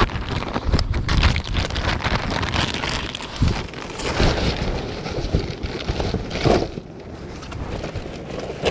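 Wind buffeting the microphone: a gusty rumbling noise with scattered crackles, easing off slightly near the end.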